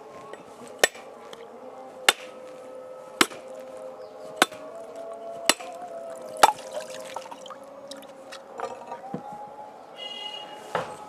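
A heavy machete striking a whole coconut about six times, a little over a second apart, then a few lighter knocks as the shell cracks open into halves.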